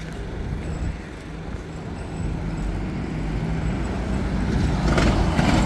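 Street traffic: a motor vehicle's engine rumble, growing louder toward the end.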